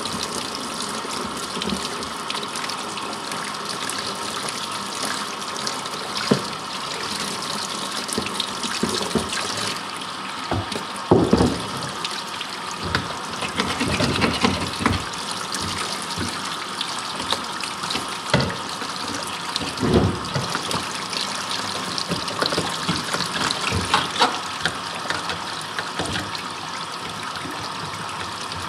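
Hot tap water running steadily over a deer skull as it is cleaned. Scattered knocks and scrapes come through, loudest about eleven and twenty seconds in, as an old knife works leftover tissue off the bone.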